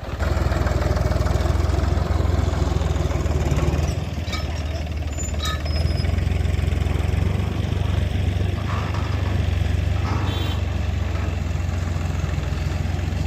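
Heavy diesel engine running steadily, its level easing slightly about four seconds in and rising again a couple of seconds later.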